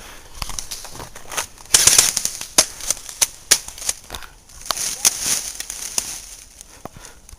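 Airsoft guns firing: a scattering of sharp cracks at irregular spacing, the loudest about two seconds in, with spells of rustling noise around two and five seconds in.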